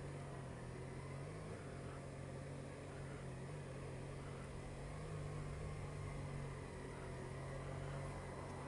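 Motorcycle engine running at low speed under a steady haze of wind and road noise, its pitch shifting slightly now and then as the bike filters between slow-moving cars.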